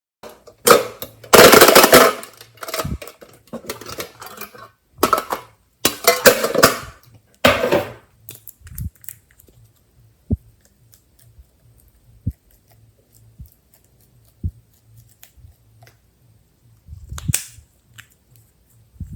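Glossy slime being squished and pressed by hand, with bursts of crackling pops for the first several seconds, then scattered single clicks and one more crackling burst near the end.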